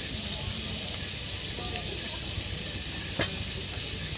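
Thin slices of beef and onion sizzling in a hot sukiyaki pan with a steady hiss while being stirred with wooden chopsticks. There is one sharp click about three seconds in.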